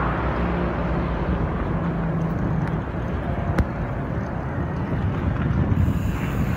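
Wind rushing over a phone's microphone while cycling along a road, mixed with outdoor road noise; a single sharp click about three and a half seconds in.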